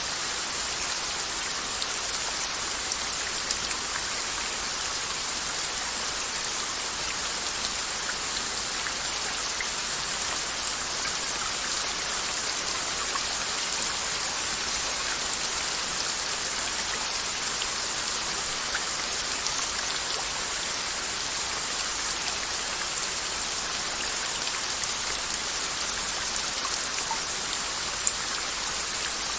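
Steady rain, an even hiss with scattered individual drop ticks, a few of them louder near the end.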